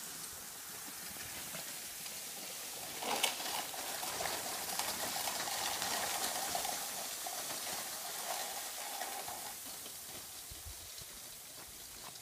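Steady scraping and rustling of a load of bamboo being dragged over a dirt and gravel track. It gets louder about three seconds in and fades toward the end.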